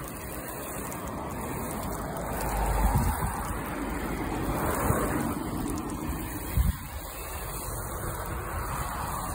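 Water spraying from a garden hose onto a car's body: a steady hiss, with low thumps about three seconds in and again near six and a half seconds.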